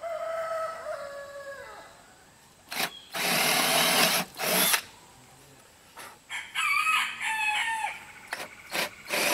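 A rooster crows, a drawn-out call that falls off at its end, and calls again about six seconds in. Between the calls a power drill runs in short bursts, boring mounting holes into the wooden base.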